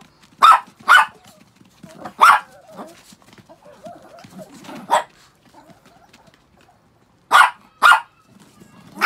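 Chihuahuas barking: about six short, sharp yaps, some in quick pairs half a second apart, with pauses of a second or two between.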